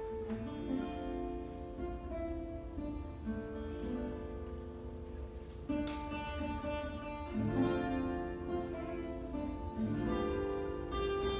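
Classical guitar played solo: plucked notes and chords in a flowing classical piece, with a steady low hum underneath.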